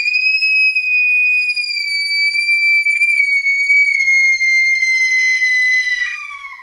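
A girl's long, high-pitched squeal of delight, held almost level for about six seconds, sagging slightly, then sliding down in pitch near the end.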